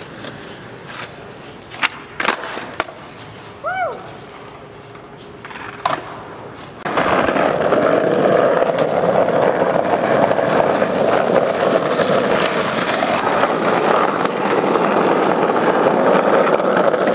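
Skateboard on asphalt: a few sharp clacks of board and wheels hitting the ground in a quieter first stretch, then from about seven seconds in a loud, steady grinding roll of hard urethane wheels over rough pavement.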